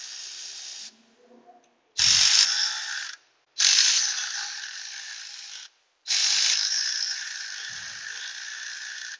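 Milwaukee cordless electric ratchet running on the AC compressor's bolts in four separate runs, each starting loud and trailing off. The user thinks its battery is going low.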